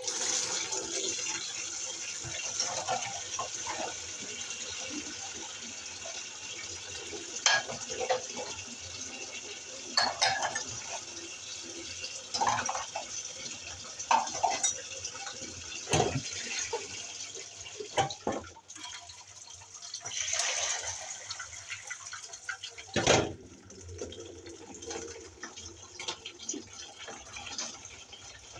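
Hand-washing dishes at a sink: tap water running and splashing while plastic basins, cups and metal utensils clink and knock against each other. The running water thins out about two-thirds of the way through, and the clatter of handling the dishes goes on.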